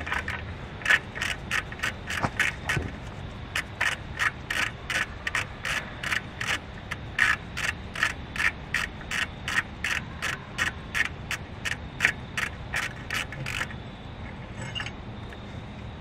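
Ratchet wrench clicking in an even rhythm of about three clicks a second as screws are backed out of a cap, pausing briefly once and stopping near the end.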